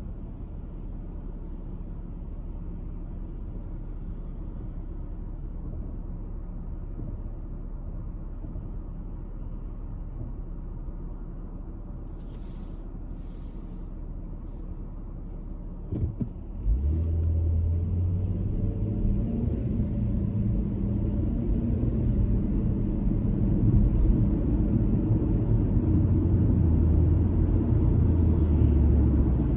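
A car driving, with steady low road and engine rumble. About halfway through there is a brief knock, then the rumble turns clearly louder and deeper and stays that way.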